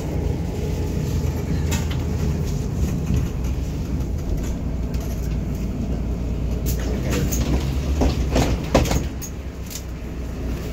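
Interior of a Mercedes-Benz Citaro city bus on the move: a steady low engine and road rumble, with sharp clicks and rattles from the cabin fittings, thickest about seven to nine seconds in. The rumble eases near the end as the bus slows in traffic.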